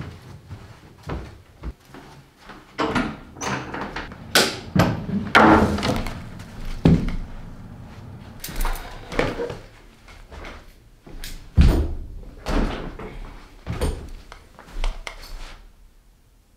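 A series of irregular knocks, thumps and bangs, about a dozen. The heaviest come about four to seven seconds in and again near twelve seconds, and they stop shortly before the end.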